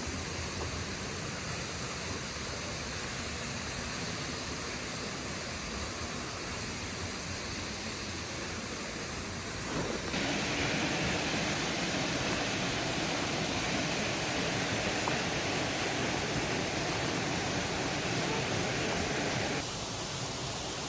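Steady outdoor rushing noise with no clear pitch or rhythm. It jumps louder and brighter abruptly about ten seconds in and drops back abruptly near the end.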